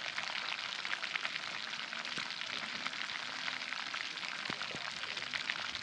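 Fish frying in hot cooking oil in a pan over a wood fire: a steady sizzle full of fine crackles, with a couple of light knocks about four and a half seconds in.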